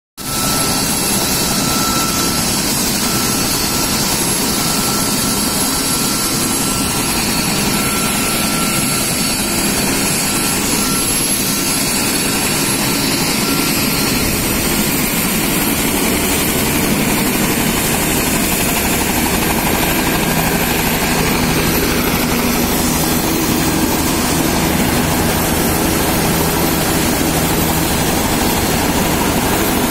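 Bell 206 helicopter's turboshaft engine and rotor running steadily, with a thin high turbine whine that steps slightly higher about halfway through.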